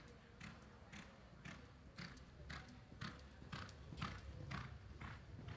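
A reining horse's hooves striking the arena dirt at a lope, an even beat of about two strides a second that grows louder toward the middle as the horse passes close.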